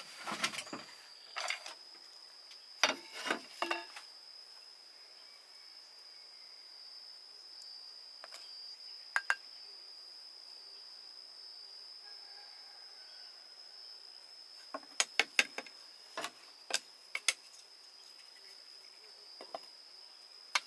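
A steady high-pitched insect trill, such as a cricket's, runs without a break. Over it come scattered sharp clicks and knocks: a few in the first seconds, a pair about nine seconds in, and a quick run of them about fifteen seconds in.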